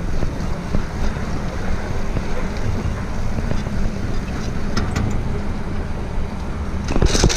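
Wind buffeting the helmet- or chest-mounted action camera's microphone while riding a gravel bike, with the tyres rolling on wet concrete. A few light clicks about five seconds in and a louder knock near the end.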